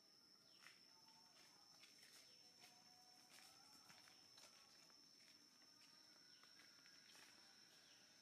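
Near silence: faint outdoor ambience with a steady high insect drone and a few faint, falling bird chirps.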